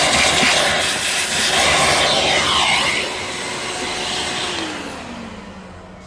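Vacuum cleaner running, its hose nozzle sucking at the carpet. About three seconds in it grows quieter, and near the end the motor winds down, its hum falling in pitch.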